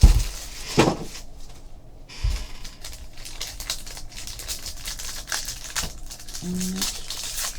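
Trading card box and its packaging being handled and opened: a knock at the start, then a run of light clicks and rustles as the box and cards are handled.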